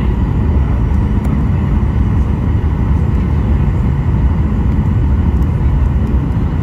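Steady low rumble of jet engines and rushing air heard inside an airliner's cabin, with a faint steady whine above it.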